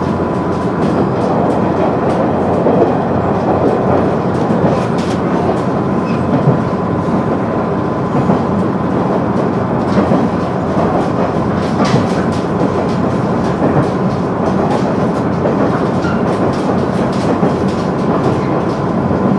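KiHa 100 diesel railcar running along the line, heard from inside the car: a steady rumble of engine and wheels on rail, with irregular clicks from rail joints and a thin steady whine.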